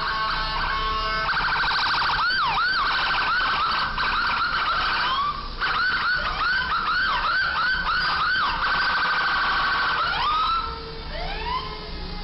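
Electronic emergency-vehicle siren in a fast yelp, about three sweeps a second, with a rapid pulsing warble layered in. Near the end it changes to slower rising whoops.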